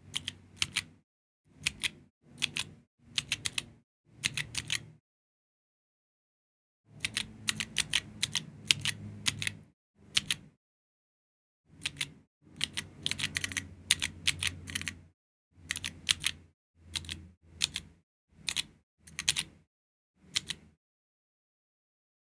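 Georgi stenographic keyboard keys clacking as steno chords are pressed and released, in short clusters of clicks. There is a pause of about two seconds about a quarter of the way through.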